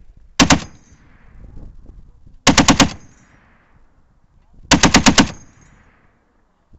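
A .50-calibre Browning M2 heavy machine gun firing three short bursts of a few rounds each, about two seconds apart. Each burst trails off in a rolling echo.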